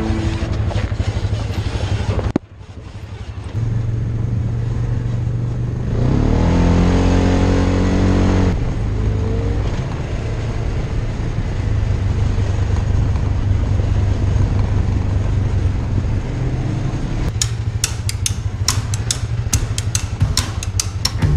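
Polaris RZR 900 side-by-side's engine running on an off-road trail, revving up about six seconds in. Sharp clicks and knocks join it near the end.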